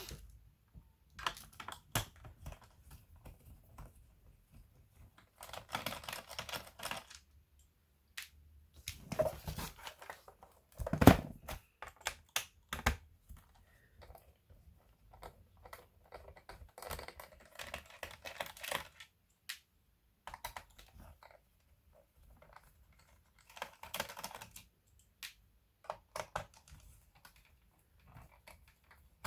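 Plastic parts of a Samsung RV518 laptop being handled during disassembly: scattered clicks, short rasping scrapes, and one louder knock about eleven seconds in.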